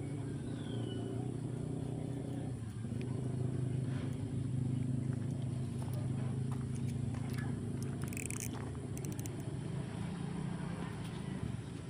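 Small motor-scooter engine running steadily at idle, with a few light clicks about eight seconds in.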